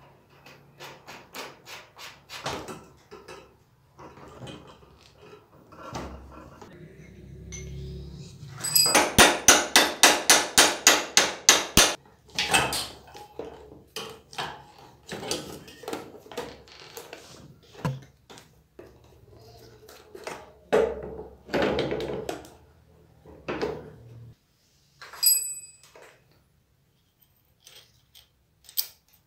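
Metal parts of a motorcycle's steering head knocking and clinking as they are fitted together by hand. About a third of the way in comes a quick run of about a dozen ringing metal-on-metal strikes, like hammer taps, and later a short metallic ping.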